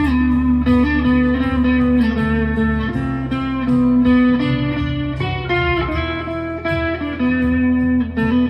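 Chapman ML1 Modern Standard electric guitar, neck pickup split to single coil, played through an overdrive pedal: a lead line of held single notes with a few slides between them.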